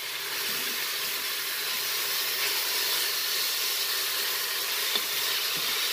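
Freshly added zucchini strips and onion sizzling in hot oil in the pot of a Moulinex Cookeo electric multicooker, set to brown on high heat: a steady frying hiss while a wooden spoon stirs them.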